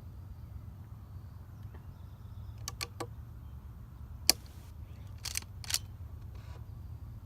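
Small clicks from a .22 rifle being handled and readied to fire: a few light clicks about three seconds in, a sharper click a little past four seconds, and two more near five and a half seconds, over a steady low rumble.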